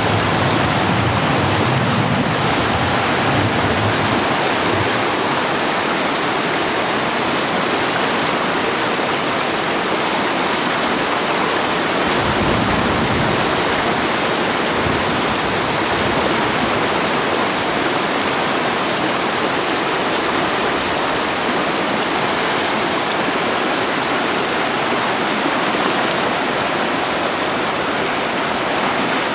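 Floodwater rushing down a street, a loud, steady rush of water. A brief low rumble comes in about twelve seconds in.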